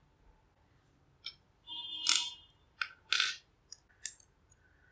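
Small metal clamp being worked off a hot glue gun's aluminium heater nozzle by hand: a handful of light metallic clicks and scrapes, with a short ringing scrape about two seconds in and the sharpest clicks about three seconds in.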